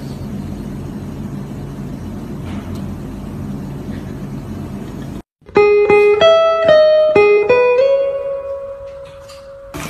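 A steady low hum for about five seconds, then, after a brief silent cut, a short plucked-string tune: about eight quick notes, the last one ringing out and fading.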